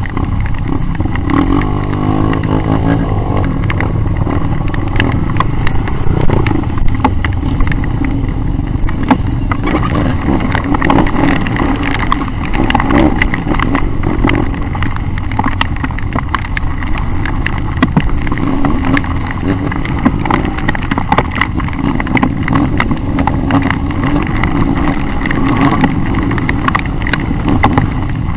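Off-road motorcycle engines running at low trail speed, the revs rising and falling, with frequent knocks and rattles as the bikes ride over a rutted dirt track.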